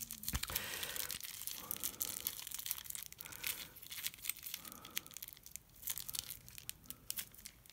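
Small plastic coin bag crinkling and tearing as it is unfolded by hand: a dense run of sharp crackles that thins out after about four seconds.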